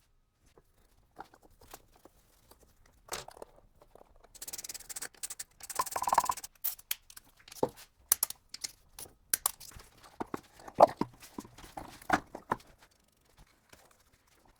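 Metal parts and tools being handled during gearbox assembly: scattered sharp clicks and knocks, with a rustling hiss from about four to six seconds in.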